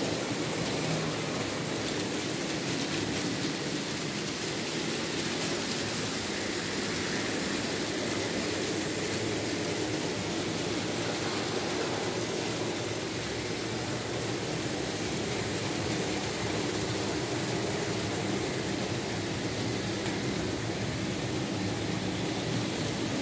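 Märklin H0 model train, a BR 23 steam locomotive pulling wagons, running steadily along the track: an even whir of the motor and rolling wheels on the rails.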